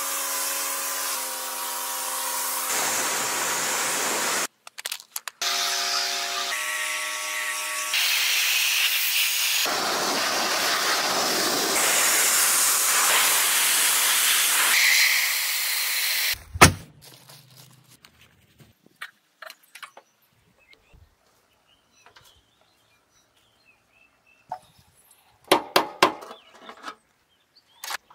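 Power tools working on metal in short, abruptly cut segments: a whining tone that changes pitch in steps, then a steady hiss. About 16 seconds in there is a sharp knock, and after that it goes mostly quiet except for a few light clicks.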